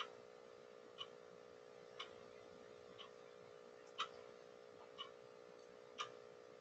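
Faint regular ticking, one tick a second with every other tick louder, over a steady low hum.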